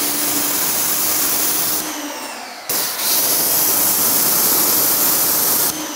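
Active 2.0 electric pressure washer spraying a high-pressure water jet from its gun: a steady loud hiss with a faint motor hum. It eases off briefly about two seconds in, then sprays stronger again until it drops near the end.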